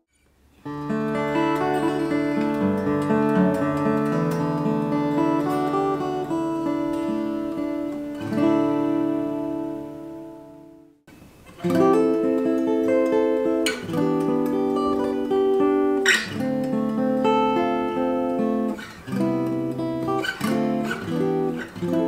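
Martin GPC-16E Rosewood cutaway steel-string acoustic guitar played fingerstyle, picked chords ringing out. One passage fades out about 11 seconds in, and a second passage with sharper picked and strummed accents begins.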